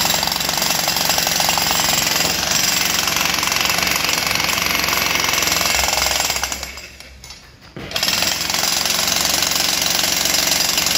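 Makita HM1306 electric demolition hammer chiselling into concrete, a steady rapid hammering. It stops for about a second and a half just past the middle, then starts again.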